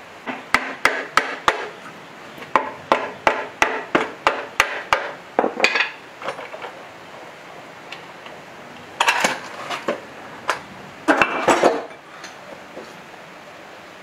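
Sharp metal knocks, about three a second for the first five seconds, then a few heavier bursts of metal clanking near the end, from parts of an old diesel engine being knocked and pulled apart.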